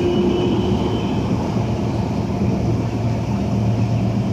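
Tram running between stops, heard from inside the car: a steady rumble of wheels on the rails under a low motor hum, with a higher whine that fades out about a second in.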